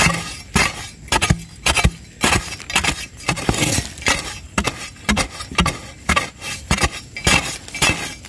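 A metal digging blade chopping repeatedly into hard, dry, stony earth, about two strikes a second, each a sharp chunk with some clink and scrape of soil and small stones.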